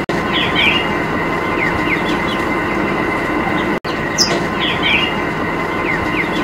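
A steady mechanical drone with birds chirping over it, cut off for an instant twice.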